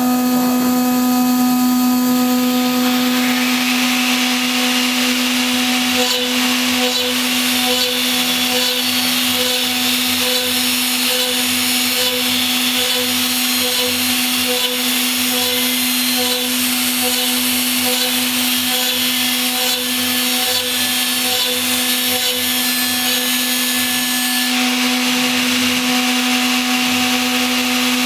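A CNC-1212 router spindle runs at a steady pitch while a small end mill cuts an aluminium gear. The whine is joined by a constant hiss from the cut, which grows stronger about three seconds in.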